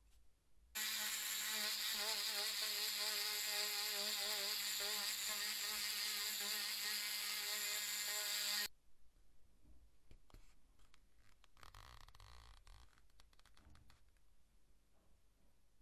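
Small handheld electric rotary tool buzzing with a steady high whine as its tip works the edge of a leather piece. It starts about a second in, runs for about eight seconds, then stops suddenly. Faint handling clicks and rustles follow.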